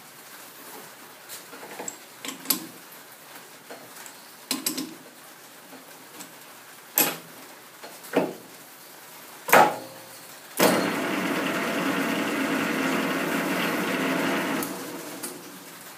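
A handful of sharp metal clicks and knocks as the workpiece is seated and the lathe chuck is tightened with its chuck key. About ten and a half seconds in, the metal lathe's spindle starts and runs steadily with a hum of several tones for about four seconds, then is switched off and runs down.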